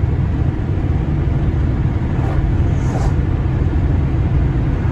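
Steady driving noise inside the cab of a GAZelle Next van at road speed, a low, even rumble of engine and tyres on a slushy, snowy road.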